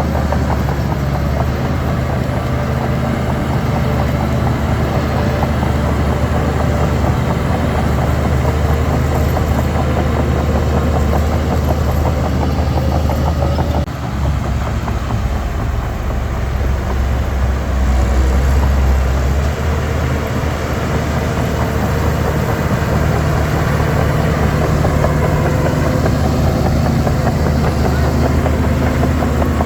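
Heavy diesel engine of a Shantui DH17 C3 bulldozer running steadily under changing load, dipping briefly about halfway through, then pulling harder with a deeper note a few seconds later.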